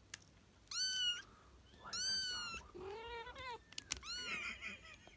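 Kittens meowing: about four short, high-pitched meows, each rising and then falling in pitch.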